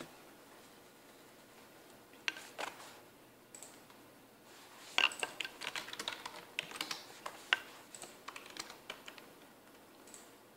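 Computer keyboard typing: a couple of separate key clicks, then a quick irregular run of keystrokes in the middle, over faint room hiss.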